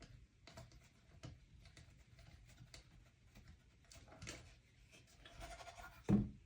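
Small clicks and handling noises of a screwdriver and tiny screws being driven into a speaker mounting board. A brief squeaky scraping sound comes about five seconds in, followed by a sharp thump.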